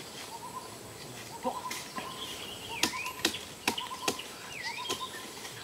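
Birds calling: short repeated notes and a few curving whistles. Several sharp snaps and crackles of dry brush are the loudest sounds, as someone pushes through the undergrowth.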